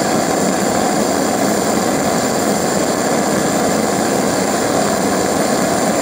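Homemade pulse detonation engine with a water jacket, fired on LPG and compressed air, running steadily: a loud, continuous combustion roar.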